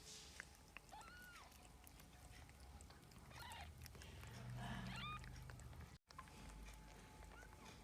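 Newborn kittens mewing faintly in a cardboard birthing box: three or four short, high-pitched mews spread a second or two apart.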